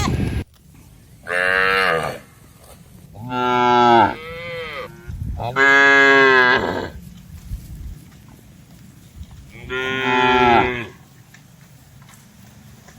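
Cattle mooing: four drawn-out calls of about a second each, spaced a few seconds apart, the second followed by a shorter falling call.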